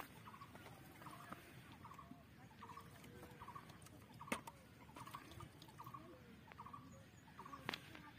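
Faint bird calls, a short chirping call repeated about every half second to second, with two sharp clicks, one near the middle and one near the end.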